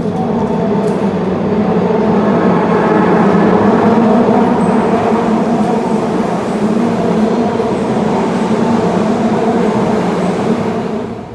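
Osaka Metro Midosuji Line subway train running alongside the platform: a loud, steady rumble with a motor hum layered over it. The sound drops off shortly before the end.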